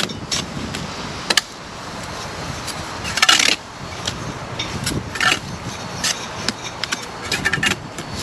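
Steel brick trowel working mortar and bricks as a wall is laid: a few sharp taps and several short scrapes, the loudest about three seconds in.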